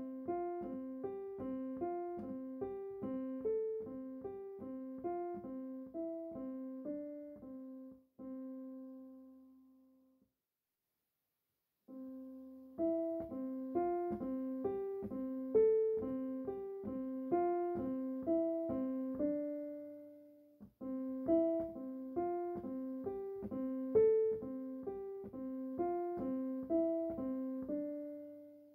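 Background piano music: a gentle, repeating pattern of evenly spaced notes in three phrases, each ending on a held note that fades. There is a short silence about ten seconds in and a brief break about twenty seconds in.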